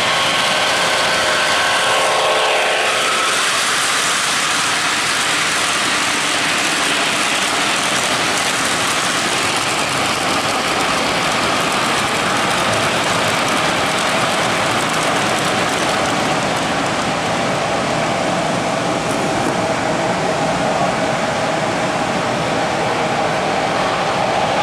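O-gauge model freight train, pulled by a Weaver GE U25B locomotive, running on three-rail track: a steady rolling noise of metal wheels on rail and the locomotive's motor.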